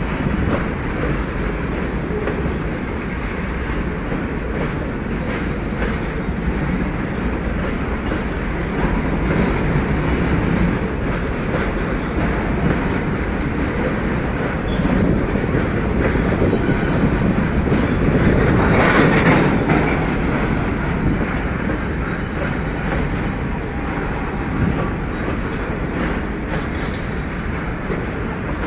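Long goods train of covered freight wagons rolling past at close range: a steady rumble and clatter of wheels on the rails, swelling louder for a couple of seconds about two-thirds of the way through.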